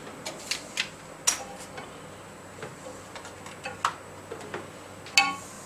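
Irregular clicks and taps of an HDMI cable plug being handled and fitted into a clamping test rig, about half a dozen in all, with a sharper, ringing click near the end.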